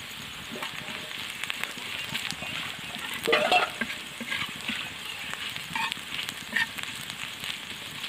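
Small river fish and sliced onions sizzling in hot oil in a pan, with steady crackling. A spatula scrapes and stirs through them several times, loudest a little over three seconds in.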